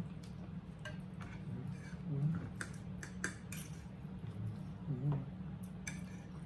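Eating sounds: a scatter of short sharp clicks and smacks from chewing and from cutlery on plates, over a low steady hum.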